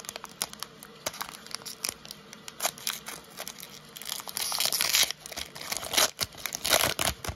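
Foil wrapper of a Pokémon Shining Fates booster pack crinkling as it is torn open by hand. A louder tearing rip comes about four seconds in, and sharp crackles follow near the end.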